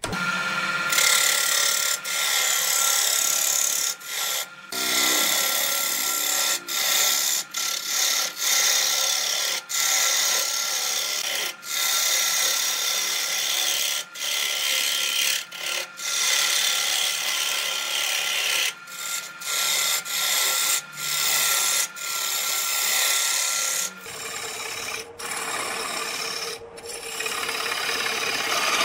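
Lathe gouge cutting into a spinning wood blank, a loud scraping hiss of shavings being peeled off. It breaks off briefly again and again as the tool is lifted and set back against the wood, over a thin steady whine. About 24 seconds in, the whine drops lower and a low hum comes in.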